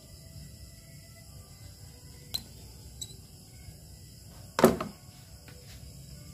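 Small clicks and one loud sharp knock about four and a half seconds in, with a few light ticks after it: tools and parts handled while a wire is fastened to a toggle switch.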